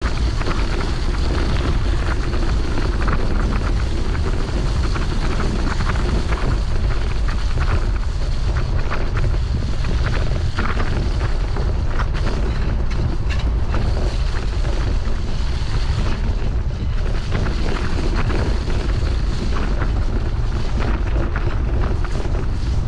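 Steady low rumble with wind noise buffeting the microphone.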